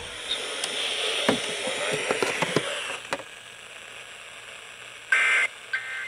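Radio hiss with a few handling clicks and knocks, then about five seconds in a loud, shrill two-tone burst from a radio speaker, under half a second long, followed by a shorter one: the digital data tones of an Emergency Alert System broadcast.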